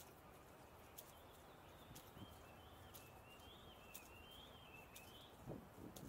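Near silence: faint outdoor background with soft clicks about once a second and faint high wavering chirps from about a second in until near the end.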